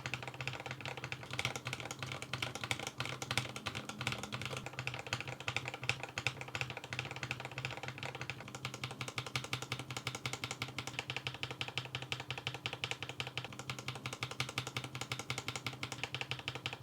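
Mechanical keyboard with Tecsee Carrot linear switches, lubed and filmed, typed on fast and without pause: a dense, even stream of keystroke clacks.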